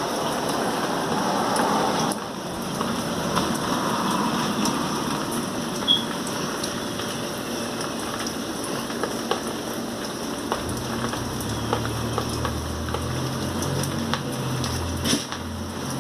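Steady rain falling, with scattered drops ticking. A low hum joins in about ten seconds in.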